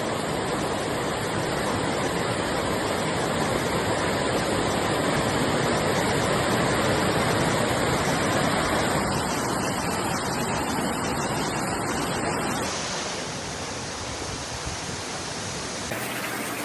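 Steady rush of floodwater, a dense even hiss of running water that drops in level about thirteen seconds in.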